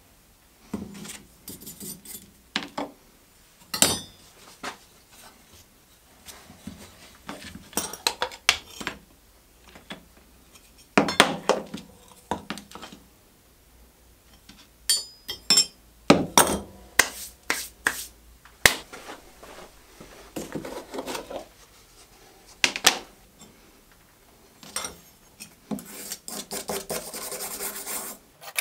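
Handling sounds from dismantling and cleaning an old wooden fillister plane: scattered knocks and clinks of its metal iron, fittings and hand tools against the wooden body and the table, with stretches of scraping and rubbing. A denser run of scraping comes near the end.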